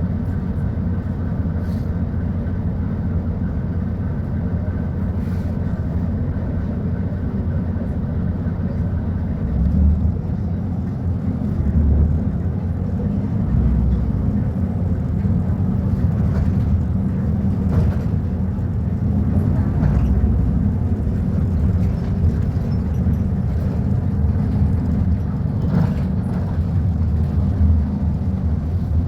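Volvo B290RLE city bus engine running steadily. It swells briefly about ten and twelve seconds in, with scattered short knocks or rattles throughout.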